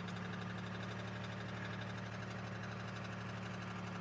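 2002 Chevy Malibu engine idling steadily.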